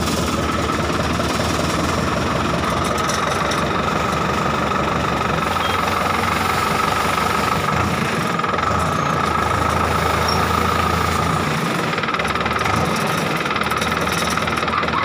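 Small tractor's engine running steadily under load in low range while it pulls a disc plough through dry, clumpy soil.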